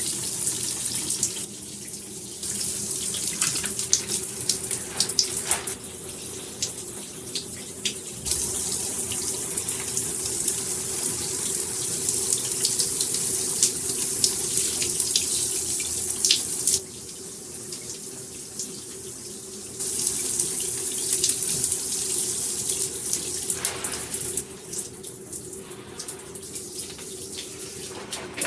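Water spraying steadily from a chrome dual shower head combo, with a steady low tone underneath. The spray gets louder about a third of the way in, drops off for a few seconds about two-thirds in, then comes back.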